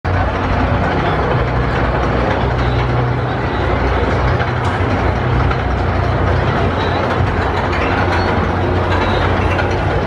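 Windstorm roller coaster train rumbling along its steel track, over a steady low hum of fairground machinery.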